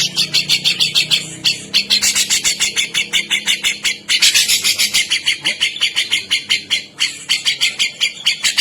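Cucak jenggot (grey-cheeked bulbul) calling in a rapid, even run of harsh, chattering notes, about six or seven a second. The run pauses briefly about four and seven seconds in.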